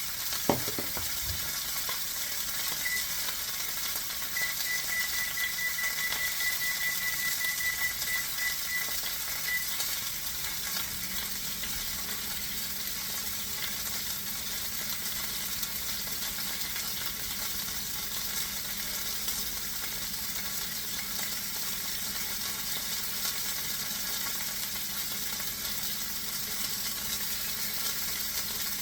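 Butterflied chicken frying in a skillet on a stove burner: a steady sizzle, with a single knock about half a second in.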